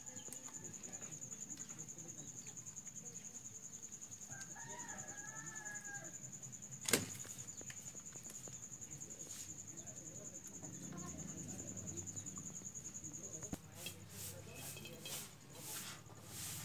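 Faint outdoor background: a steady high insect-like whine that stops about thirteen seconds in, a short chicken call about five seconds in, and one sharp click about seven seconds in.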